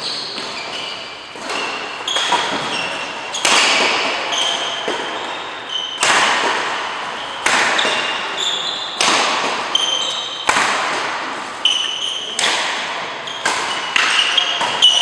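Badminton rackets hitting a shuttlecock back and forth in a doubles rally: sharp cracks about once a second, each ringing out in the large hall. Short high squeaks of shoes on the court mat come between the hits.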